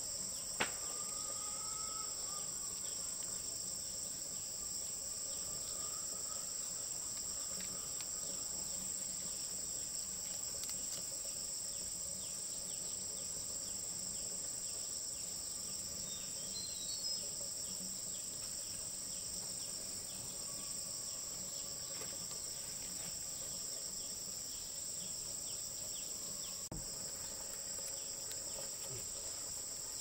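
Steady, high-pitched chorus of insects that keeps on without a break, with a few faint sharp clicks now and then.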